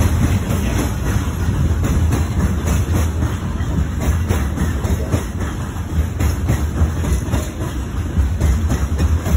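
Coal-loaded open freight wagons rolling along the rails, a steady low rolling noise with scattered clacks of wheels over rail joints.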